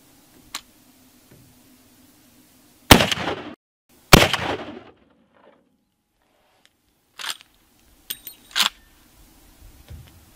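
A .45-70 lever-action rifle, a Cimarron Model 71, firing: two loud reports about a second apart, each trailing off briefly. Near the end come a few quieter sharp clicks and clacks.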